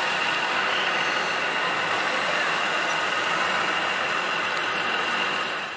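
Radio-controlled Volvo wheel loader model's electric drive whining steadily with a hiss as it crawls through sand; the sound fades out near the end.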